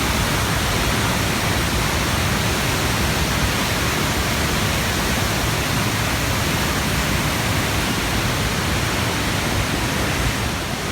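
Waterfall crashing down, a steady loud rushing of falling water.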